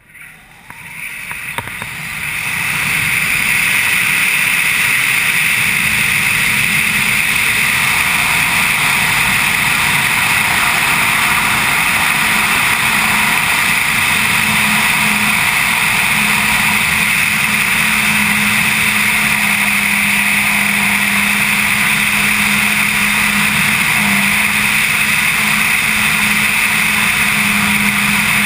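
Wind rushing past a GoPro camera during a BASE jump's flight, building over the first three seconds as the jumper picks up speed, then a loud, steady roar.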